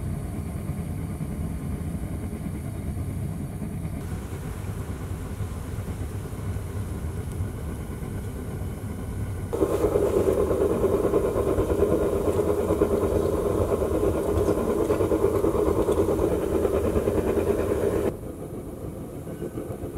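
Gas-fired foundry furnace burner running with a steady rushing noise. It turns abruptly louder about halfway through, with the furnace lid open and the crucible of molten aluminium being lifted out, then drops back suddenly near the end.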